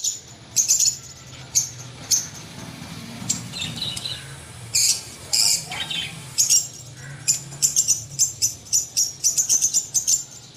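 Small birds chirping, with short high chirps that come thicker and faster in the second half, over a steady low hum.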